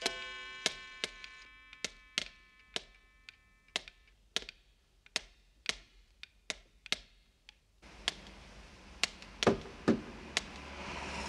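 Pendulum wall clock ticking about twice a second, while a chime rings at the start and fades away over the first few seconds. About eight seconds in, a steady hiss comes in and a few louder knocks sound.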